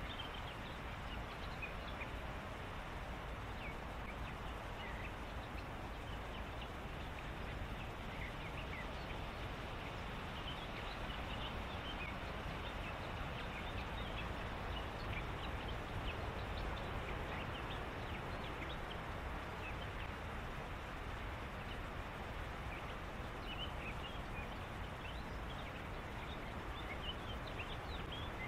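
Evening reed-bed ambience: a steady hiss, with many short, faint, high chirps from small animals calling in the reeds, scattered throughout.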